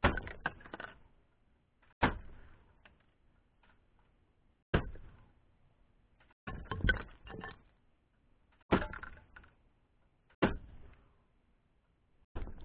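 Air gun shots striking plastic toy targets: seven sharp cracks about two seconds apart, each followed by a short clatter of struck pieces.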